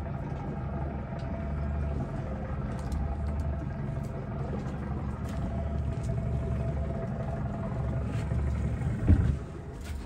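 A panga's outboard motor idling with a steady low rumble. A single knock sounds about nine seconds in.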